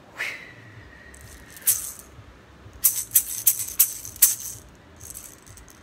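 Handheld rattle shaken in a quick run of sharp, crisp shakes in the middle, with a softer shake near the end. Before the shaking, a high held tone sounds for about a second and a half.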